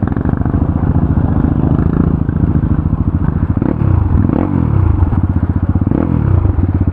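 Motorcycle engine running under way, its speed dropping and picking up again twice in the second half, with a few knocks and clatter.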